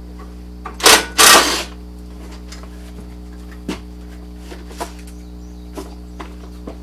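Tools and parts being handled in a truck's engine bay: two loud scraping clatters about a second in, then a few light knocks.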